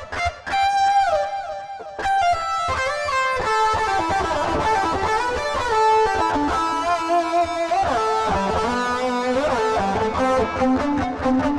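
Electric guitar lead played through a Boss ME-25 multi-effects on an overdriven preset with delay added, the notes trailing into echo repeats. Held notes are mixed with several string bends and slides.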